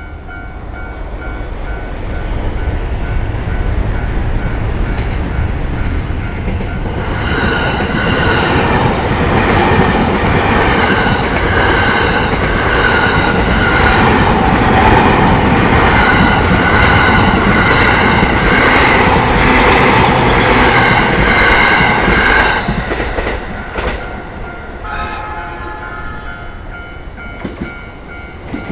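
A train running past a railway level crossing. It builds up over the first few seconds, is loudest for about fifteen seconds, then dies away about three quarters of the way through. The crossing's warning bell rings in a steady repeating pattern underneath and is heard plainly again as the train fades.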